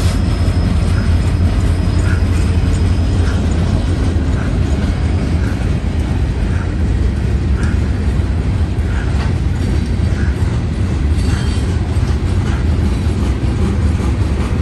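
Freight train rolling past at close range: a steady low rumble of its freight cars on the rails, with faint regular clicks about once a second.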